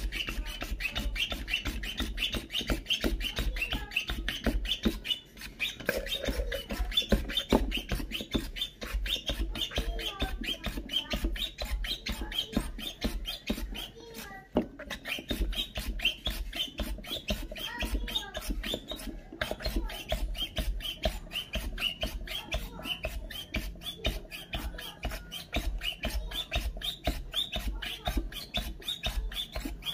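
Staresso hand-pump portable espresso maker being pumped by hand, a fast, even run of clicks as the espresso shot is pressed out.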